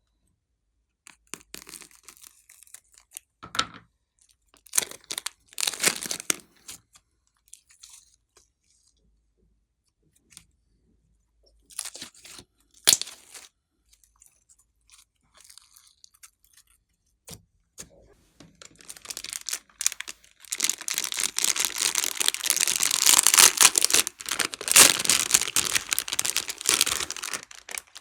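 Slime and its add-ins being squished and mixed by hand, with crunchy, crackling handling sounds. These come in scattered short bursts at first, then build to a dense, continuous crackle for most of the last eight seconds.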